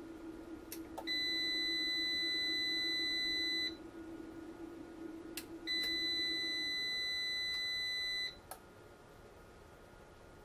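An electronic beeper sounds two long, steady, high-pitched beeps of about two and a half seconds each, the first starting about a second in and the second about five and a half seconds in, each set off and ended by sharp clicks. A low steady hum runs underneath and fades out during the second beep.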